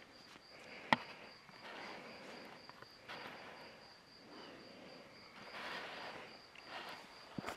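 Faint steady trill of crickets, with a sharp click about a second in and a few soft rustles.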